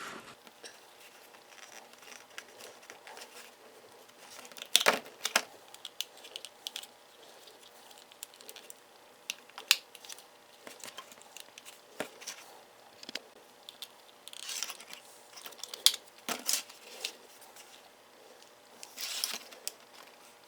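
Small screwdrivers clicking and scraping against the plastic housing of a power window switch as its cover tabs are pried apart. Scattered sharp clicks and short scrapes come in clusters, the busiest about five seconds in, around fifteen to sixteen seconds, and near the end.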